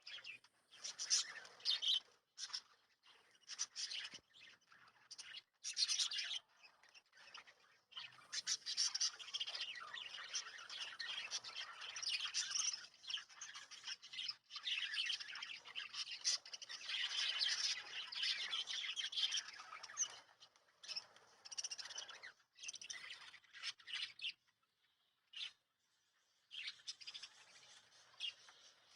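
A flock of pet lovebirds and budgerigars chirping and chattering rapidly, with high squawky calls. The calls come in bursts broken by short silences, and there is a long stretch of dense chatter in the middle.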